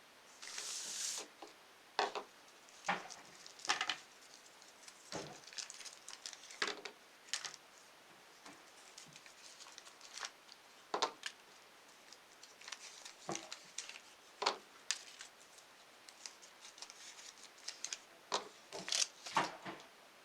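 Irregular crinkling and tearing, with scattered light clicks and knocks, of small packaging being handled and opened by hand; the longest crinkle comes about a second in.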